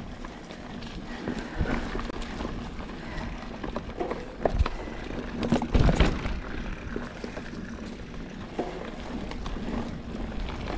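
Specialized Stumpjumper mountain bike rolling along a dirt trail: a steady rumble of tyres on the ground, with the bike rattling and knocking over bumps, loudest about four and a half and six seconds in.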